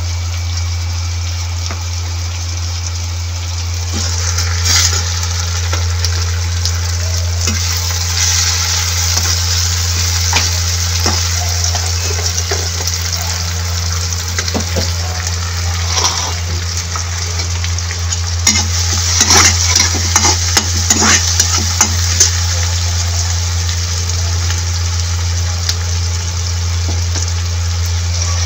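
Chopped onion, tomato and green chillies frying in oil and butter in a pan, sizzling steadily as the tomatoes soften. A spatula scrapes and clacks against the pan now and then, most busily about two-thirds of the way through, over a steady low hum.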